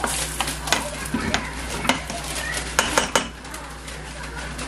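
Plastic slotted spatula stirring a stainless steel pot of soup with potatoes, scraping and knocking sharply against the pot several times. The stirring stops a little after three seconds in.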